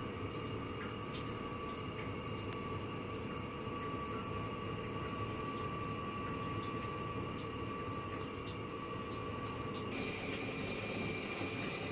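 A steady mechanical hum with a thin high whine, and a few faint light clicks. The whine shifts in pitch about ten seconds in.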